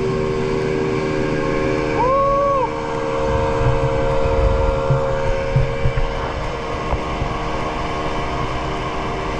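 A motor running steadily, its even hum fading after about six seconds, with wind gusting on the microphone. A short tone rises and falls about two seconds in.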